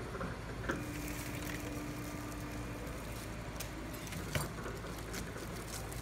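Super Stripper 170 cable stripping machine running with a steady low hum, with scattered clicks and rattles of copper wire strands and two sharper knocks, one about a second in and one just after four seconds.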